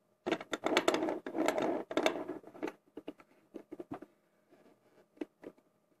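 Small metal lockpicks and tension tools clinking and rattling as they are handled: a dense clatter for about two and a half seconds, then scattered light clicks.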